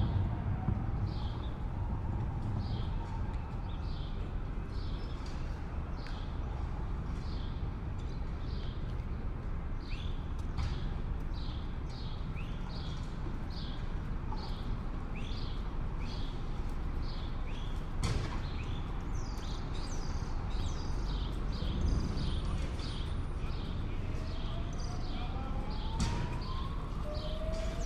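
City street ambience: a steady low hum of traffic with a short high chirp repeating evenly, about one and a half times a second. A rising whine comes in over the last few seconds, with a sharp knock about two-thirds of the way through.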